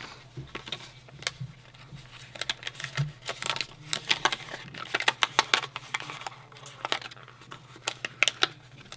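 Paper sticker sheet and cardstock being handled, crinkling and rustling in quick, irregular crackles and light clicks, with two denser flurries.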